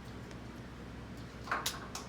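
A pet sneezing once: a short sharp burst about one and a half seconds in, followed by a couple of small clicks, over a steady low hum.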